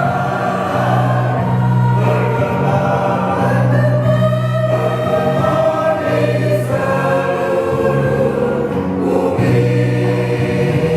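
Church choir singing a hymn in parts, holding sustained chords that change every second or two over steady low notes.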